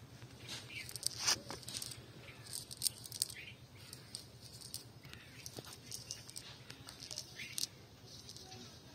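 Nylon cast net rustling and crackling in irregular bursts as hands pull through its wet, muddy mesh, picking out small fish.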